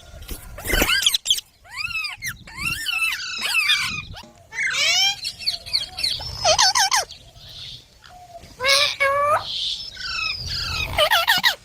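Baby green parrot chirping: quick runs of short, arching calls that rise and fall in pitch, broken by brief pauses.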